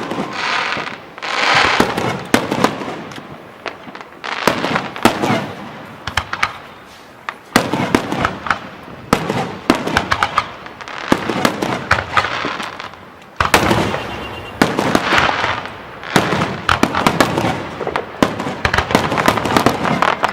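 Aerial fireworks display going off continuously: many sharp bangs of bursting shells, with stretches of dense crackling between them. A fresh volley starts suddenly about two-thirds of the way through.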